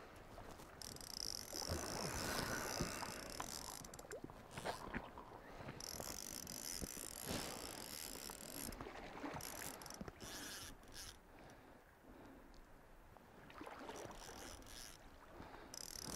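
Fly reel's click-and-pawl drag buzzing faintly in spells of a few seconds as a hooked coho salmon is played on the line.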